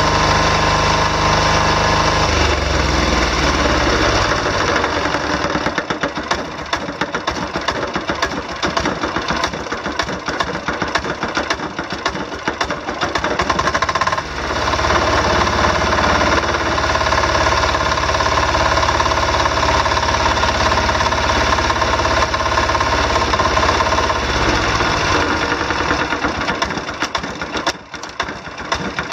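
Brand-new 10 hp single-cylinder Yanmar-clone diesel engine running on its first start. Its speed steps down a few seconds in, comes back up about halfway through, and slows again near the end as the throttle is moved.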